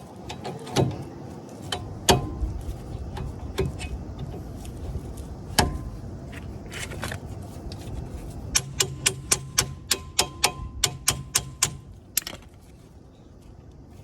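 Metal tools and brake parts clinking and clicking during work on a car's front disc brake caliper, with scattered single clicks and then a run of about a dozen quick, evenly spaced metallic clicks, about four a second, in the second half.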